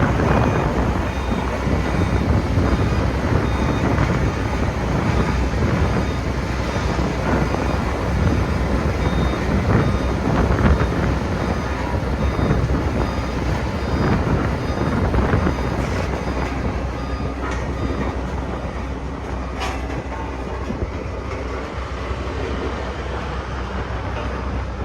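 Sakai road roller's diesel engine running under load, a steady heavy rumble that eases slightly in the second half.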